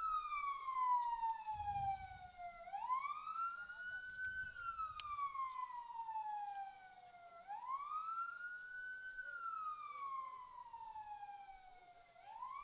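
Emergency-vehicle siren sounding a slow wail: each cycle rises quickly, then falls slowly over about four seconds, repeating steadily.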